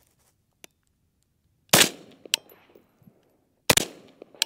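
Two AR-style carbine shots about two seconds apart, each trailing off in an echo, with a faint short knock following each shot.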